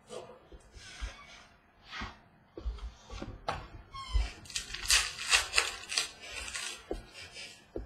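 Trading-card packs and cards being handled: foil wrappers crinkling and cards sliding and flipping, in a string of short rustles and clicks that is busiest about five seconds in.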